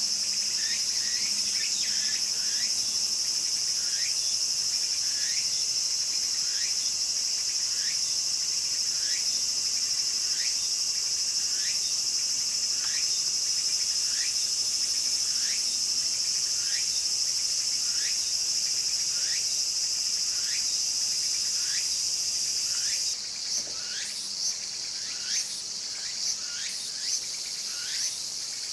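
Meimuna opalifera (tsukutsuku-boshi) cicadas singing: a loud, continuous high buzz that cuts off suddenly about 23 seconds in, over a steady series of short rising notes about one a second that carry on after it stops.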